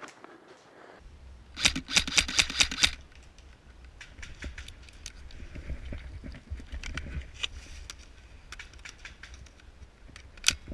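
A quick string of about nine airsoft rifle shots, sharp and evenly spaced, roughly seven a second. Then footsteps crunching through dry leaf litter, with scattered clicks and rustles of gear over a low rumble of movement.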